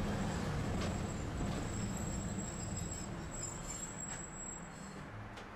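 Tosaden streetcar running, heard from inside its cab: a low steady rumble that gradually fades, with a faint high whine and a few light clicks.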